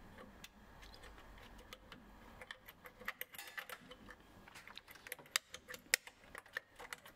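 Metal hotend of a Bambu Lab H2D 3D printer clicking and clinking against the toolhead as it is worked in and out of its slot by hand, now loose. Irregular sharp clicks throughout, the loudest two in the second half.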